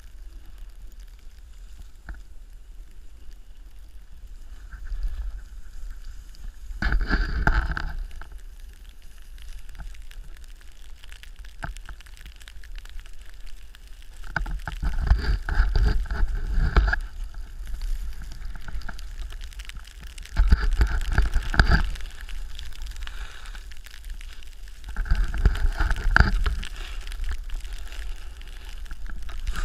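Snowboard sliding over snow with a steady low rumble, and four louder stretches of scraping a few seconds apart as the board's edge digs in on turns.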